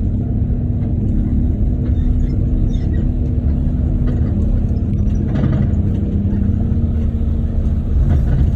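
Steady low engine rumble with a held droning hum, and a brief burst of clatter about five and a half seconds in.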